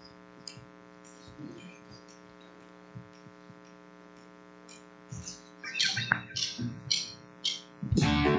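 Steady electrical hum from the sound system, with faint scattered ticks and hisses that grow busier after about five seconds. Near the end a guitar starts strumming loudly.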